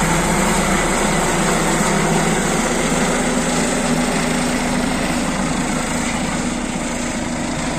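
Helicopter flying overhead, a steady rotor and engine noise that slowly fades as it moves away.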